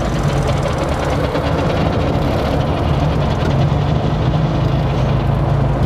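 Classic Mini's A-series four-cylinder engine running at a steady speed while driving, heard from inside the cabin with road noise: a loud, even drone with a steady low hum.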